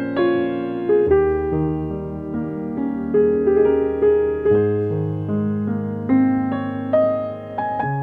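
Background piano music: a melody of separate notes, about two a second, over held low notes.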